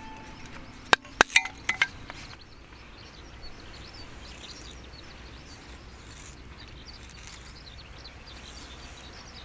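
Outdoor ambience: a quick run of five sharp clicks or knocks about a second in, then a steady background hiss with faint, scattered bird chirps.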